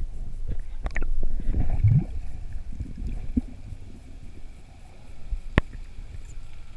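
Underwater sound picked up by a freediver's camera housing: a low, uneven rumble of water moving past it, with scattered knocks and clicks of handled gear. There is one sharp click a little past halfway.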